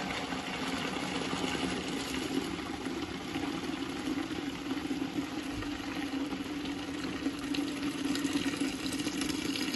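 Hot rinse water pouring in a steady stream out of a steel fuel tank into a bucket, splashing continuously as the tank drains after its rinse.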